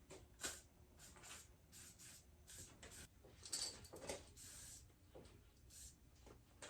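Near silence with faint, scattered rustles, scrapes and light clicks of small things being handled.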